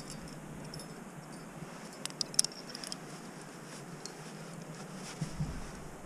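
Small sounds of a climber moving on granite: a quick cluster of sharp clicks, like climbing gear knocking, about two seconds in, and a dull thump near the end, over a faint steady hiss.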